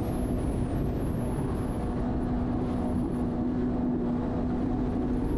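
Jet ski engine running at a steady, unchanging pitch over a constant rushing noise.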